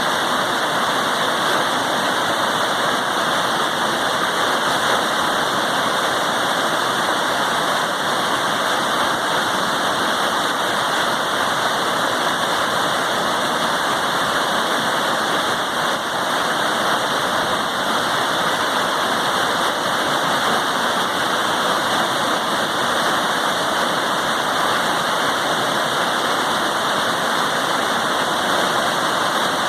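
Waterfall, a steady, loud rush of falling water that holds even throughout.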